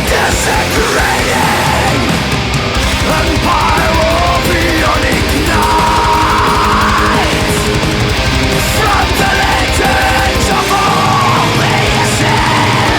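Heavy metal music playing loud and dense, without a break.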